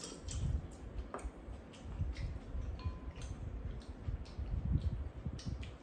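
Eating at a table: chopsticks and a spoon clicking against ceramic bowls and a skillet, a dozen or so light, irregular clicks, over soft low thuds and chewing.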